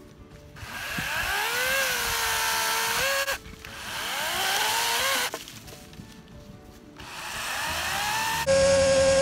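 Toro PowerPlex 40-volt brushless battery chainsaw run in short bursts: the motor whines up in pitch, runs for a couple of seconds and stops abruptly, twice. A third run starts near the end and settles into a louder, steady whine.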